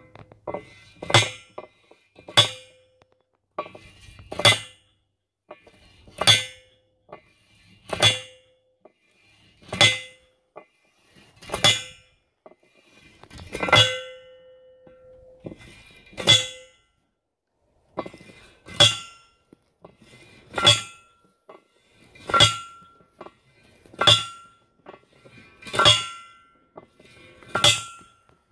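Red steel manual post driver slammed down onto a wooden stake again and again, about fifteen clanging strikes roughly two seconds apart, driving the stake into the ground. Many strikes leave a short metallic ring.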